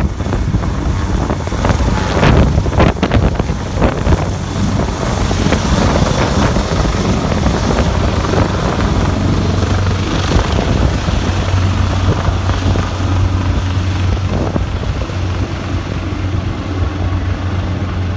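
AgustaWestland AW139 twin-turbine helicopter taking off and climbing away: a steady low rotor drone with a thin high turbine whine above it, and a few rough gusts in the first few seconds.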